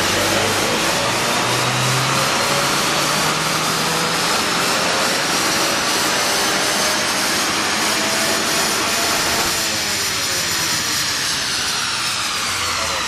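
Honda Accord 2.0T's turbocharged 2.0-litre K20C4 four-cylinder making a full-throttle pull on a chassis dyno. The engine note climbs steadily in pitch for about ten seconds, then falls away as the throttle comes off near the end.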